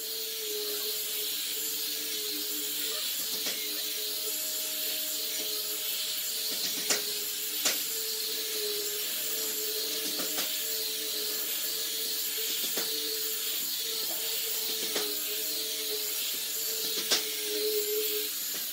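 Electric angle grinder fitted with a sanding disc running steadily, sanding the slats of a wooden lattice sphere: a constant motor whine over a hiss of abrasive on wood, broken by a few short sharp clicks.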